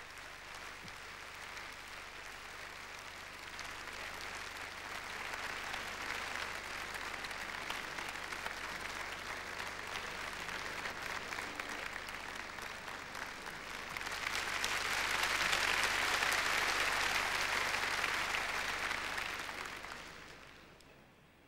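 Large audience applauding in a concert hall, a steady clapping that swells about fourteen seconds in and then dies away near the end.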